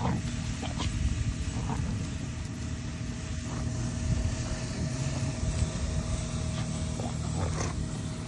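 Two dogs, a husky and a black dog, play-fighting, with a few short growls. Under them runs a steady low rumble with a constant hum.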